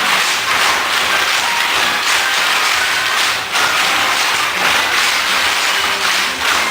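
Dense clapping or applause from many hands over faint music.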